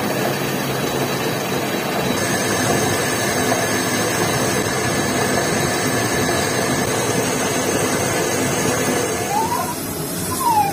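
Metal lathe running and boring out a motorcycle cylinder: a loud, steady mechanical whir with a thin high whine over it. About nine seconds in, a wavering tone starts that rises and falls a few times.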